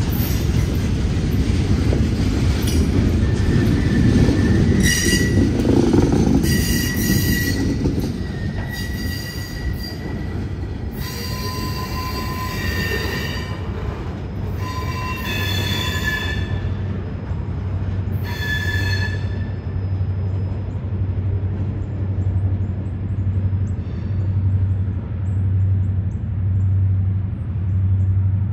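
Freight cars (boxcars and covered hoppers) rolling past close by, with a heavy rumble of wheels on rail for the first several seconds. High-pitched wheel squeal comes and goes through the middle. The rumble drops once the last cars have passed, leaving a low pulsing hum toward the end.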